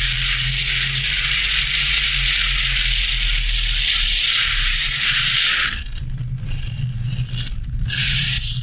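A car driving fast, heard through a hood-mounted camera: a dense rush of wind over the microphone above a steady road and tyre rumble. About six seconds in, the wind hiss drops away into uneven gusts, and a heavier, uneven rumble with scraping takes over as the car runs off the tarmac.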